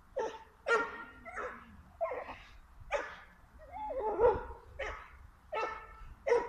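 A dog barking, about eight sharp barks at an uneven pace, with a longer wavering call about four seconds in.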